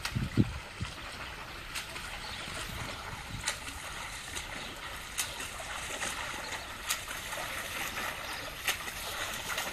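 Swimmer doing front crawl, splashing steadily through pool water, with sharp splashes of the arm strokes about every second and a half to two seconds. A few low thumps come in the first second.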